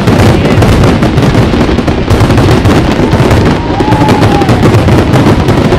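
Fireworks display: a rapid, continuous barrage of bangs and crackles, the blasts overlapping into a loud, unbroken din.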